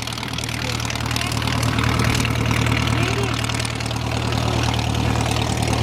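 Propeller aircraft engine running steadily, a low hum that gets a little louder about two seconds in.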